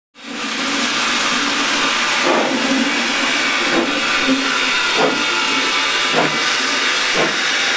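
Baldwin 2-6-0 steam locomotive standing with steam hissing steadily, fading in at the start. Soft knocks come about once every second or so.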